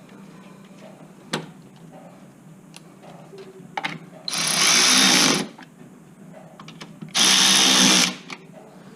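Milwaukee Fuel 3/8-inch cordless ratchet run in two bursts of about a second each, spinning down the two retaining nuts, with a few light clicks of parts and hardware between.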